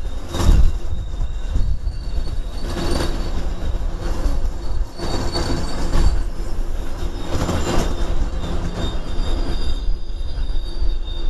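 An MBTA commuter rail train's coaches roll past at close range. A steady low rumble from the wheels and rails swells every second or two, with a thin, high steady whine over it.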